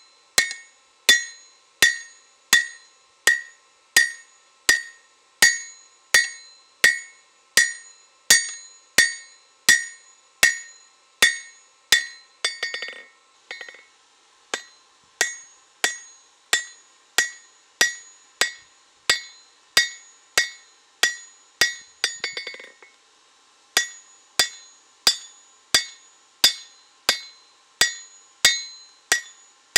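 Hand hammer striking a hot spring-steel sword blade on an anvil in a steady rhythm of nearly two blows a second, each blow followed by a bright metallic ring. Twice the rhythm breaks for a moment with a short clatter as the blade is shifted on the anvil, then the hammering resumes.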